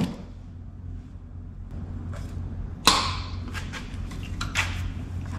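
Metal clanks and rattles of a clamp and heavy steel angle iron being fitted against the motorcycle's rear sprocket, with one sharp ringing metal knock about three seconds in, over a steady low hum.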